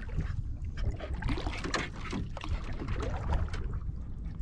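Water sloshing and lapping against a canoe hull, with irregular small knocks and a steady low rumble underneath.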